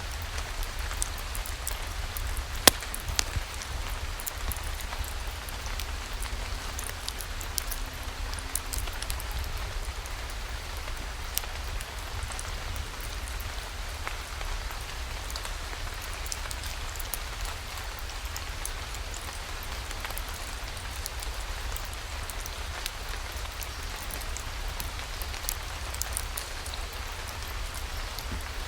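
Steady rain falling, with many scattered sharp ticks and one louder snap about three seconds in, over a low steady rumble.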